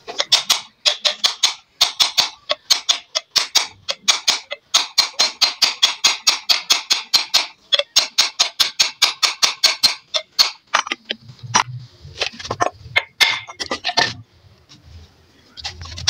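Hammer blows on a washing machine motor, metal on metal, in a fast even run of about four a second, as the motor is knocked apart for a bearing change. The steady run stops about ten seconds in and gives way to a few scattered knocks.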